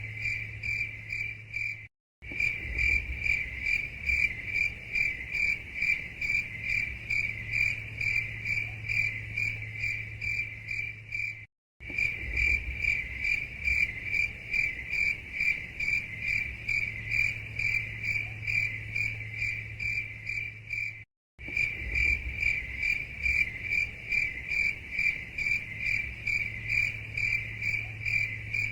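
Crickets chirping in a fast, even rhythm of about three to four high-pitched chirps a second, over a faint steady low hum. The sound cuts out to silence for an instant three times, about 2, 12 and 21 seconds in, then resumes unchanged.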